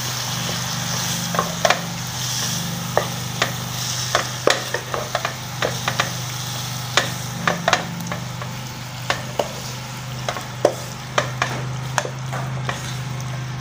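Chicken pieces and ground spices sizzling in oil in a nonstick wok while a wooden spatula stirs them, with frequent irregular taps and scrapes of the spatula on the pan. A steady low hum runs underneath.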